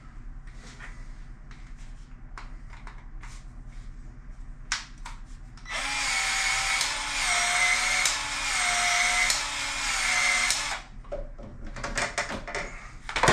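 Cordless PEX expansion tool expanding the end of a PEX water line: its motor runs for about five seconds, starting about six seconds in, with the pitch stepping up and down in a repeating cycle as the head opens and turns. Light clicks and knocks of pipe and fitting handling come before and after.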